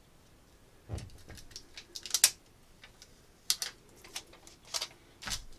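Fingers handling and pressing small adhesive vinyl pieces on a plastic cutting mat: a scatter of small taps, clicks and crinkles, the loudest about two seconds in.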